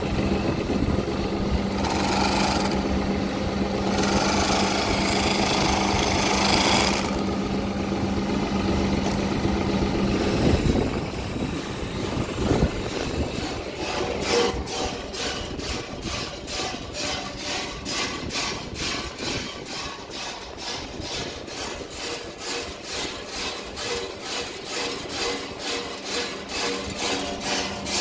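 Raisin lifting and winnowing machine running with a steady hum and rushing swells. From about halfway the hum drops away and gives way to a regular pulsing of about two beats a second.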